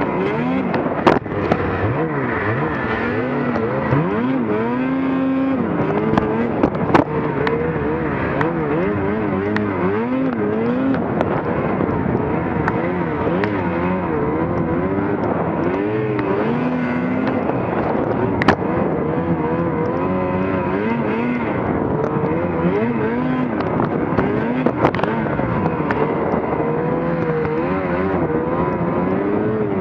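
Snowmobile engine running under constantly changing throttle, its pitch rising and falling every second or so as the sled rides through deep powder snow, with a few sharp clicks.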